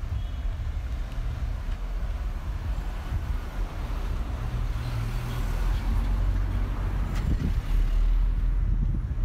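A small car's engine running at low speed as the car drives slowly along a narrow street and passes close by, getting louder toward the end with a steady low hum and tyre hiss.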